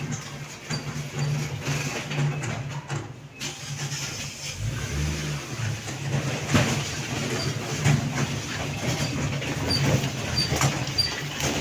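An engine running with a steady low hum and a few short knocks.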